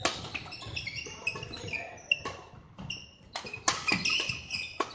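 Badminton rally on a wooden sports-hall floor: sharp racket hits on the shuttlecock, one right at the start as a player smashes overhead, with repeated short high squeaks of court shoes on the floor between the shots.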